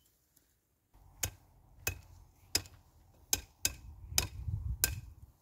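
Pruning shears snipping willow rods: about seven sharp, separate snips at uneven intervals, starting about a second in, over a low rumble.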